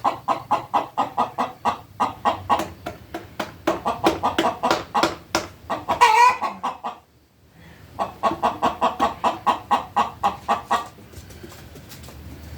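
A hen clucking in a fast, steady run of about five clucks a second, with one louder, higher squawk about six seconds in. The clucking breaks off briefly around the seventh second, resumes, and stops about a second before the end.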